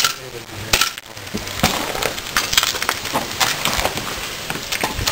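A run of irregular sharp clicks and snaps, several a second.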